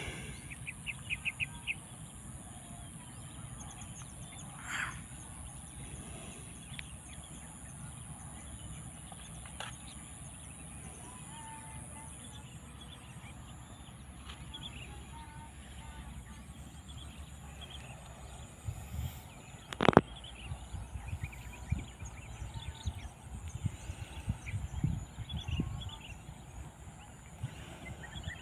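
Open-field outdoor ambience with a steady low rumble and scattered bird calls, including a quick run of chirps about a second in. A single sharp click about two-thirds of the way through, then uneven low thumps.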